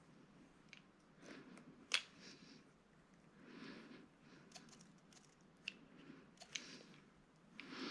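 Faint handling noises: short rustles and small clicks as the wires of a Cat 6 cable are pushed into an RJ45 plug, with one sharper click about two seconds in.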